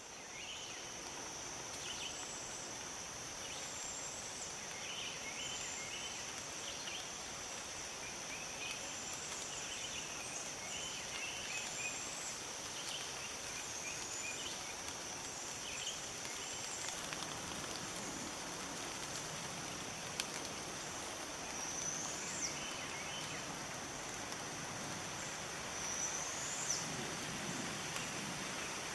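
Woodland ambience: a steady high-pitched insect drone, with scattered short chirps of small birds. Rustling comes in for the second half.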